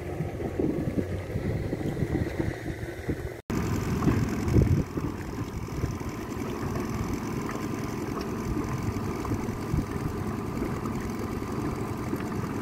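Boat motor running steadily, with a brief dropout about three and a half seconds in.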